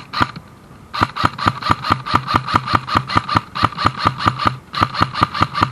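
Airsoft electric gun firing on full auto: a rapid, even string of shots at about six to seven a second with the gearbox whine under them, stopping briefly near the end and then firing again.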